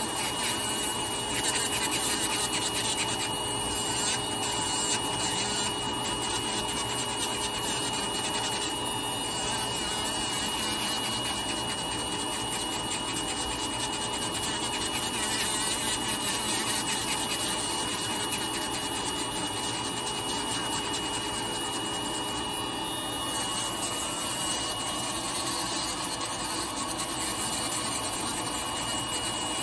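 Podiatry electric nail drill running steadily with a high whine, its sanding burr grinding down a thickened, crusty fungal toenail with a continuous rasp.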